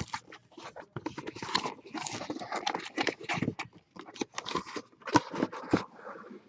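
Irregular crackling, rustling and tapping of a trading-card box and its wrapping being handled and opened, with many quick small clicks and scrapes.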